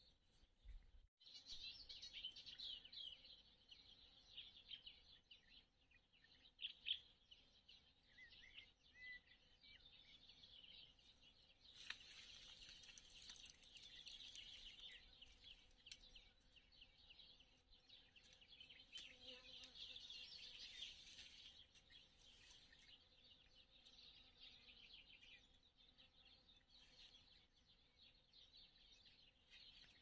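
Faint chorus of many small birds chirping and twittering in the trees, broken by a short hush about a second in.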